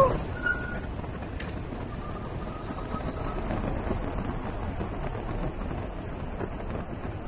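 Steady wind rush on the microphone and road noise from a Juiced Scorpion X e-bike riding at speed. A brief falling tone sounds right at the start.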